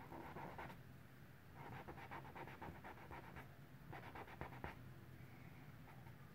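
Faint, quick scratchy rubbing of a cotton swab on an oil-painted canvas, in several short runs of strokes: the swab is lifting wet paint off the grisaille underpainting to pick out the lights.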